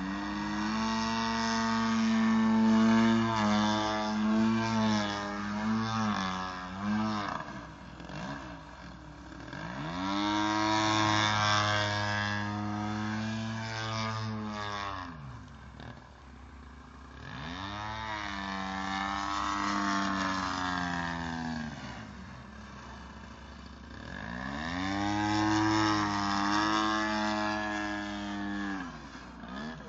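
DLE 55cc single-cylinder two-stroke petrol engine of a radio-controlled Sbach 342 aerobatic plane in flight, throttling up and down through the manoeuvres. It swells loud four times with its pitch arching up and falling away, dropping quieter in between.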